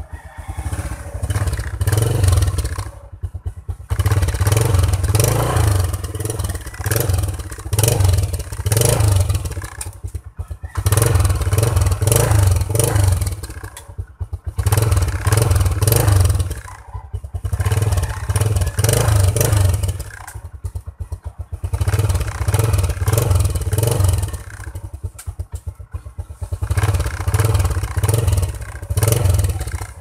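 Yamaha Crypton Z motorcycle's single-cylinder four-stroke engine running. Its sound swells and drops away every few seconds, with brief lulls between.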